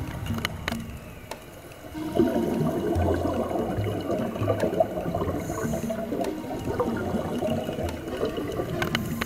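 Scuba divers' exhaled air bubbling out of their regulators, heard underwater: a dense, crackling bubbling that swells up about two seconds in and carries on.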